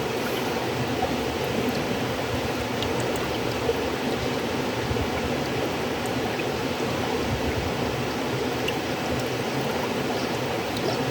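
Flowing river water: a steady, even rush of stream noise with no breaks.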